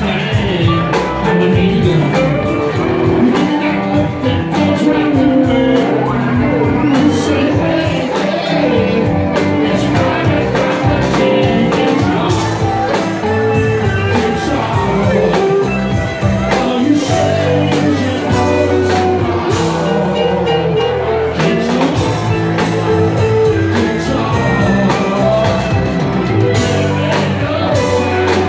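Rock band playing live: electric guitars, bass, drums and keyboard, with a lead vocal singing over them.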